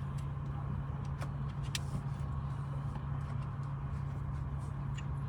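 Steady low hum of a car's engine and road noise heard inside the cabin, with two faint clicks a little over a second in.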